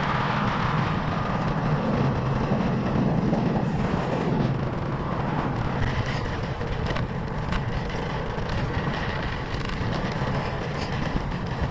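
Steady rushing wind noise on the microphone and the rumble of bicycle tyres rolling on the road while riding, with a few faint clicks.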